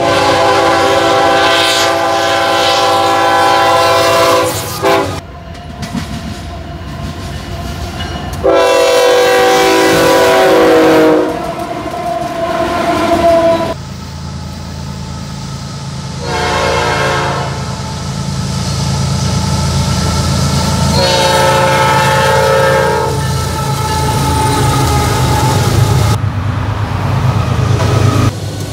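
Diesel freight locomotives sounding their multi-note air horns in several long blasts, over the steady low rumble of the engines and rolling train.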